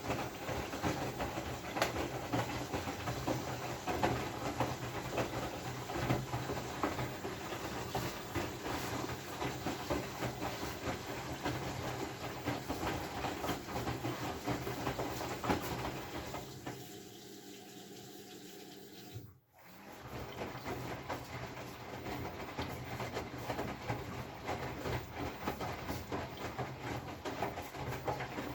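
Whirlpool FFB8469BVBE front-loading washing machine running and making a strange noise: a low steady hum under a dense crackling, clicking rattle. About two-thirds of the way through the sound drops away for a few seconds and briefly cuts out almost completely, then carries on.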